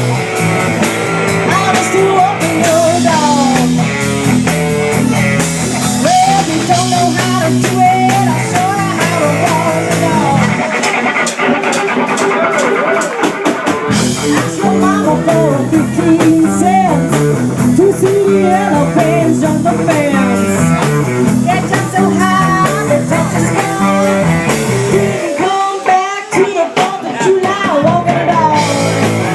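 Rock song playing: a singer over guitar, bass and drums, with a bluesy rock-and-roll feel.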